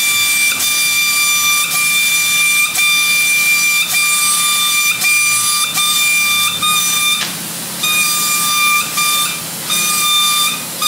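Paint spray gun spraying: a steady hiss with a high whistle, stopping briefly about seven seconds in, then triggered in shorter spells toward the end.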